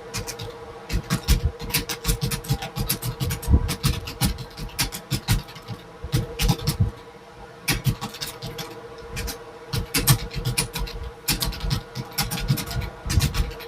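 Rapid, uneven key clicks of someone typing on a computer keyboard, with a steady hum underneath.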